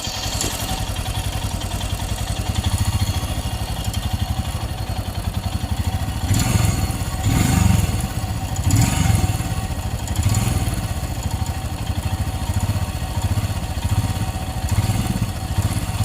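Royal Enfield Himalayan BS6's 411 cc single-cylinder engine running hot after a ride, with the mechanical noise the owner hears only once the engine has warmed up. The sound swells louder a few times in the middle.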